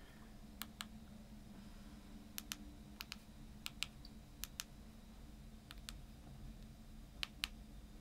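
Rubber keypad buttons on a BTECH DMR-6X2 handheld radio pressed one after another as a frequency is keyed in: about seven close pairs of faint clicks, a second or so apart.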